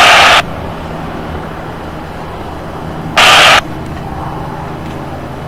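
Handheld aviation radio static: a loud hiss that cuts off suddenly just after the start, then a second short burst of static about three seconds in, the squelch opening and closing. Under it a steady low hum.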